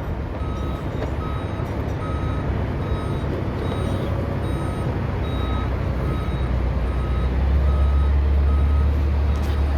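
A vehicle's reversing alarm beeping about twice a second over a steady low engine rumble, which grows louder near the end.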